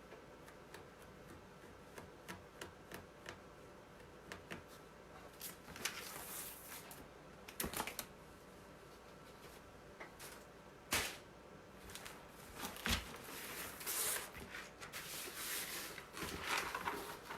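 Scattered small clicks and taps, then rustling and handling noises with an occasional knock, as objects are moved about at close range.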